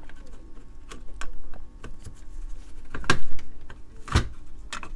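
Light clicks and knocks as the Glamcor Classic Elite lamp's control box and its cover plate are handled and pressed together, with a louder knock about three seconds in and another near the end.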